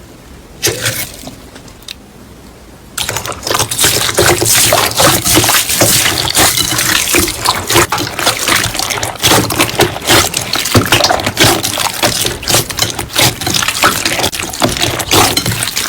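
Slime being worked by hand: many small pops and crackles, quiet for about the first three seconds and then loud and dense.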